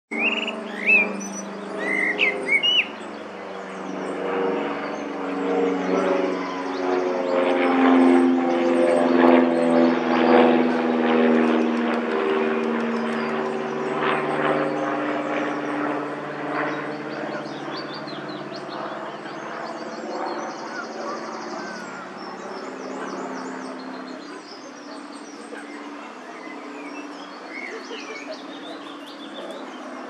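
A few bird chirps in the first seconds. Then a distant engine's low, steady drone swells up, is loudest about a third of the way in, and slowly fades as its pitch sags slightly, like something passing by.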